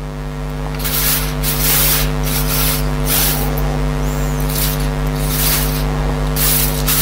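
Packaging being torn and rustled open in short, irregular rips and crinkles, roughly one a second, over a steady electrical buzz.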